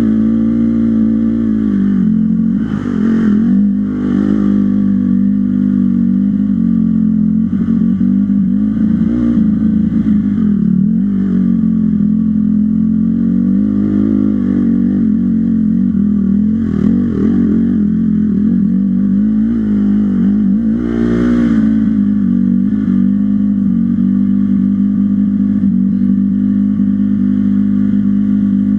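Off-road dirt bike engine running continuously under throttle, its pitch wavering up and down as the revs change. Two brief rushes of noise stand out, a few seconds in and again about two-thirds of the way through.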